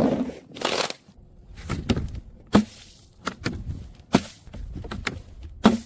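Brittle things being crushed: a run of about nine sharp, irregular crunching cracks, roughly one to two a second.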